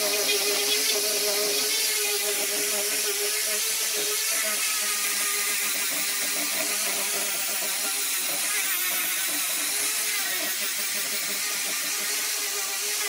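Handheld angle grinder with a sanding disc running steadily, its motor whine wavering slightly in pitch over the hiss of the disc sanding a wood panel filled with dark filler.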